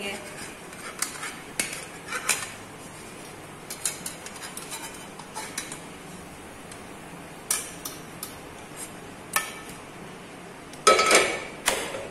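Slotted metal spatula and nonstick frying pan clinking and scraping together as a semolina patty is turned over, in scattered light knocks, with two louder ringing clanks near the end.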